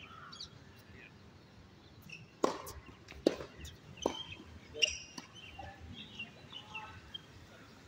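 Four sharp pops of a tennis ball on a racket and a hard court, about 0.8 s apart, starting a little past two seconds in, with faint birds chirping.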